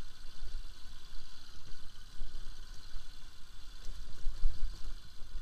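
Bajaj Pulsar RS200 motorcycle riding slowly over a rough dirt track, heard as an uneven low rumble that swells and dips over a steady hiss.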